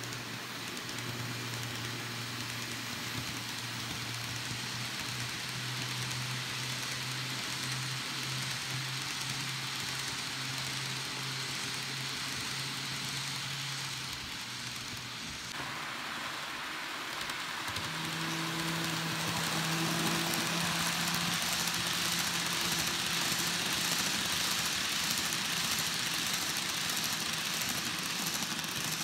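N scale model trains running on track: small electric locomotive motors hum steadily over the hiss and rattle of wheels on the rails. About halfway through, the running noise gets louder and a higher-pitched motor hum takes over as a second train comes near.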